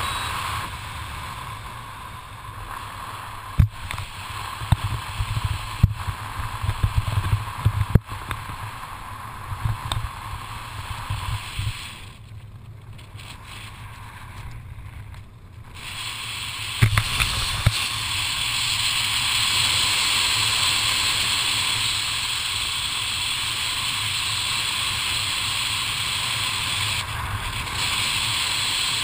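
Wind rushing over a helmet camera's microphone during a parachute descent under an open canopy. Gusty low buffeting and knocks come through in the first part; after a quieter stretch the wind settles into a steadier, louder hiss.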